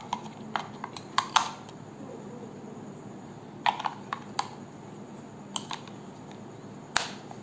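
Sharp plastic clicks and clacks as AA batteries are pressed into the plastic battery compartment of an Ahuja ABW-400UH wireless microphone's bodypack receiver and the compartment cover is closed. About ten separate clicks, in small clusters.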